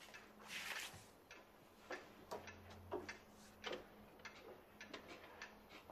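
Faint light clicks and taps, roughly two a second and unevenly spaced, with a soft rustle about half a second in.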